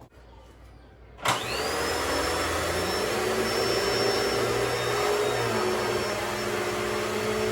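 An electric household appliance motor is switched on about a second in, its whine rising briefly as it spins up, then running steadily with a loud rushing noise.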